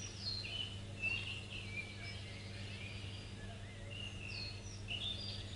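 Small songbirds chirping and calling in a forest, many short quick notes, faint over a steady low hum.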